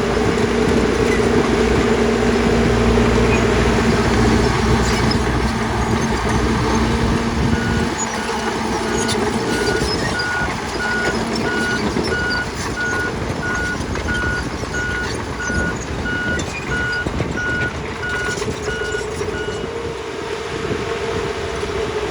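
Heavy construction machinery running, with a backup alarm beeping steadily at about one and a half beeps a second from about a third of the way in until shortly before the end.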